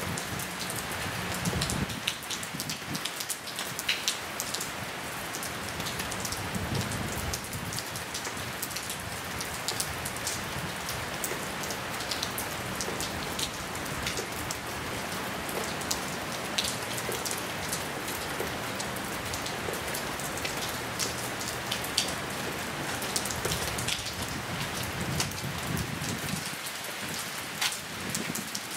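Steady rain falling: an even hiss with many separate drop hits through it.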